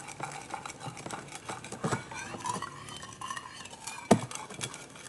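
A small spoon stirring borax into hot water in a container, with quick light clinks and taps against the sides and one louder knock about four seconds in.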